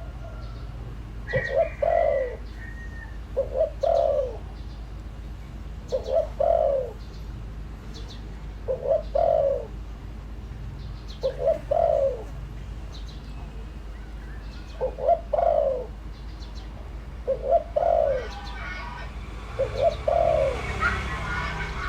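Spotted dove cooing: a short two- to three-note coo phrase repeated about every two seconds, about ten times. Faint chirps of small birds in the background, with a short burst of chatter near the end.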